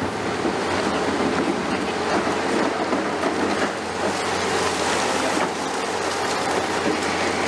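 CAT 336E hydraulic excavator working under load, its demolition attachment crunching and breaking concrete off a building wall, with a continuous crackle and rattle of falling rubble over the engine's steady hum.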